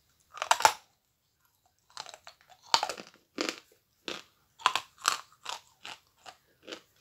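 A bite into a large lump of Akbulak edible chalk snaps off a piece with a loud crunch, then the hard chalk is chewed with short crunches, about two a second, growing fainter toward the end.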